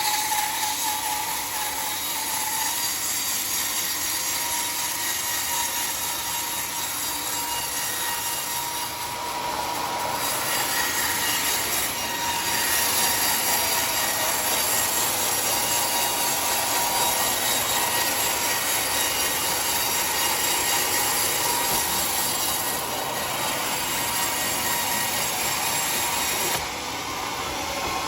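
Sawmill saw cutting through a teak log: a steady, high-pitched rasping cut with a faint whine, shifting in strength a few times and easing off a little near the end.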